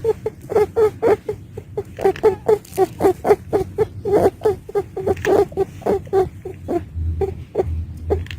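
Pet rabbit making a long run of short, squeaky calls, about three or four a second.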